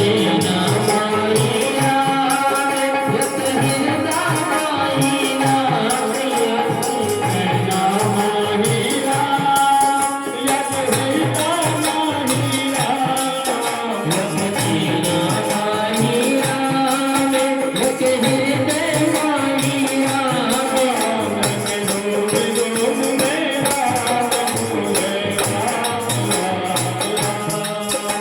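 Devotional kirtan music: a melody sung or played over a steady beat of rattling hand percussion.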